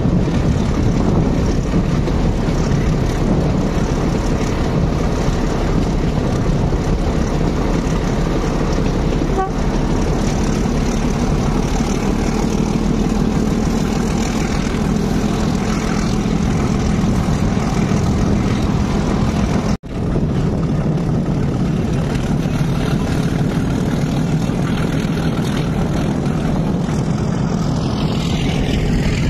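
Metre-gauge passenger train running at speed behind a diesel locomotive: a steady low engine drone mixed with loud, even wheel and rushing-air noise. The sound cuts out for an instant about twenty seconds in.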